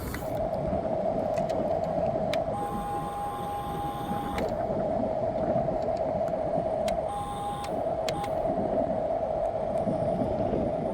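Electric drive motors and gearbox of a 1/16-scale RC bulldozer whining steadily, with small clicks; the whine steps up to a higher pitch twice for a second or two.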